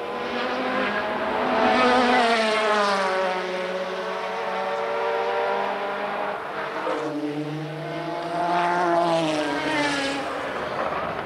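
Group C endurance race cars passing one after another at speed. The engine notes fall in pitch, then rise again, with the loudest passes about two seconds in and near the end.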